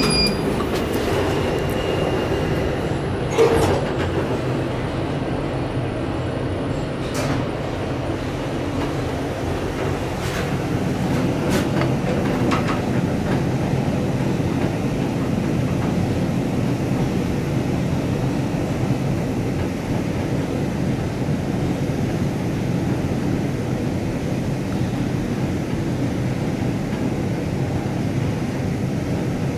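1975 KONE inclined traction elevator setting off down its sloped shaft: a few clicks and a thump in the first seconds, then the car runs with a steady low rumble, much like a rail car on a track.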